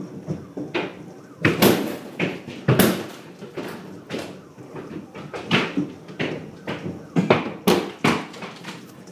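Hailstones striking a hard surface: irregular sharp knocks of varying loudness, some loud and close, others faint.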